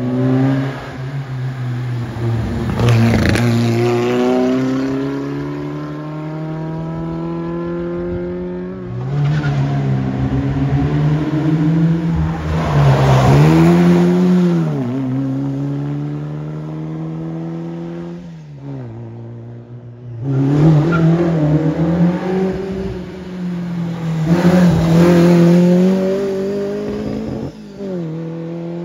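Engines of competition cars on a hillclimb run, revving hard with repeated rises in pitch and sudden drops at gear changes. The sound swells and fades several times as the cars pass.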